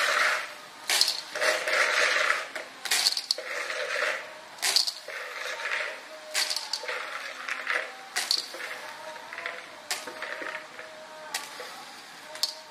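Shelled guteng molluscs dropped by hand a few at a time into a thin aluminium wok, their shells clattering on the metal at irregular moments, each drop followed by a short hiss of sizzling in the hot spice paste.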